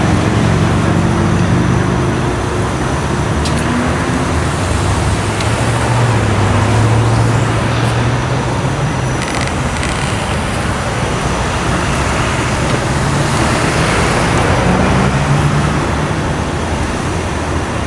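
Road traffic: cars passing and running close by, a steady rumble of tyres and engine hum that swells as vehicles go past.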